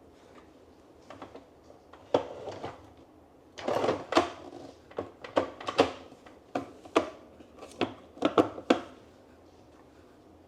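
Hard plastic parts of a Ninja Creami Swirl ice cream maker being pushed and pulled by hand: a run of knocks and clicks with rubbing, as a fitted part is tried and fails to come out.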